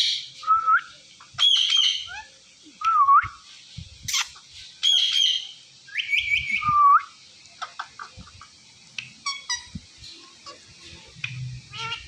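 Indian ringneck parakeets calling: a run of short whistles and harsh squawks with gliding pitch, loud through the first seven seconds, then quieter short chirps and clicks.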